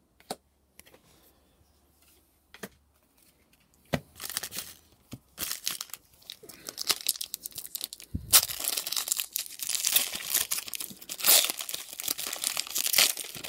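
Foil Pokémon booster pack wrapper crinkling and being torn open. A few light clicks first, then steady crinkling from about four seconds in, a soft thump about eight seconds in, and louder ripping and crackling of the foil after that.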